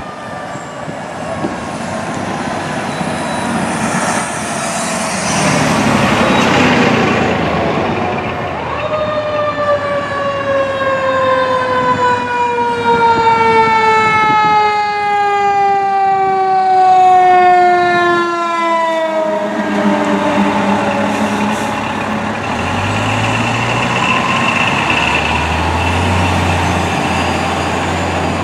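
Fire engine siren wailing. Its pitch slides slowly downward, climbs back up about nine seconds in, then falls again in one long, slow slide. Near the end, the truck's low engine rumble comes in as it passes.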